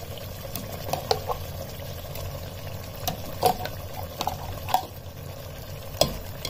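A steel spoon clinking and scraping against a steel bowl and an aluminium pressure cooker as thick ground masala paste is scooped onto chicken in hot mustard oil, about eight light clicks spread over the time, over a low steady sizzle from the pot.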